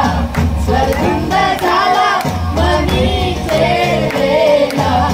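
A group of men and women singing together into a microphone over amplified music with a heavy, repeating bass beat.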